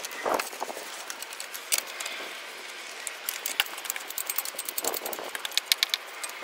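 Ratchet wrench with a 10 mm socket clicking in quick runs as the nut on a car battery's hold-down clamp is backed off, with light metallic rattles of the clamp and its J-hook.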